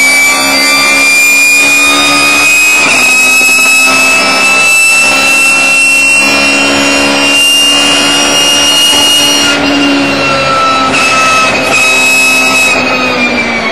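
Race car engine running hard, heard from inside the cockpit, with a high whine on top of it. The pitch climbs slowly as the car pulls along the straight, then falls away near the end.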